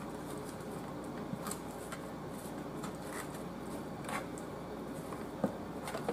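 Hands turning and rubbing raw seasoned chicken legs in a metal baking pan: faint soft squishing and rustling, with a light sharp tap about five seconds in.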